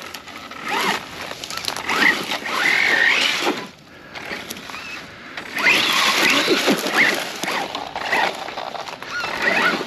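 Tall dry grass and brush rustling and crackling as someone wades through it on foot, in three bouts with short quieter gaps between.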